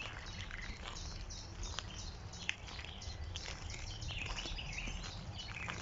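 Songbirds chirping and singing together, many short high calls overlapping, over a low steady rumble.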